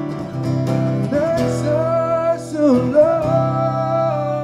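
Acoustic guitar strummed steadily, with a male voice singing long held notes that slide up and down in pitch from about a second in.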